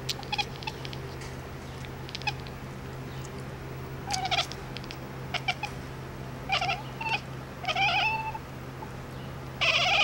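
Domestic cat giving a string of short, high meow-like calls, about five of them a second or so apart, over a steady low hum.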